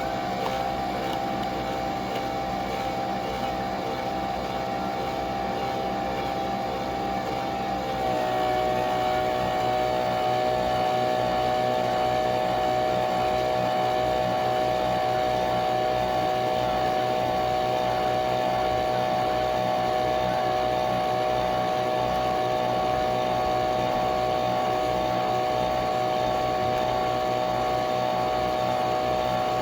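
Nespresso Vertuo Pop+ coffee machine whirring steadily as it brews, its motor spinning the capsule. About eight seconds in the whir drops slightly in pitch and gets a little louder.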